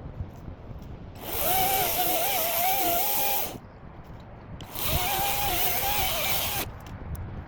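Battery-powered Ego chainsaw run in two bursts of about two seconds each, its electric motor whining with a wavering pitch under load.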